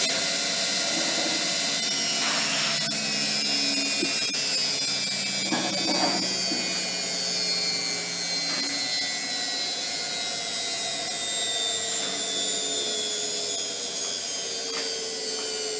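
Zanussi FlexiDose ZWG 6161 P washing machine's motor running with a steady whine whose pitch falls slowly throughout, with a few light knocks from the drum.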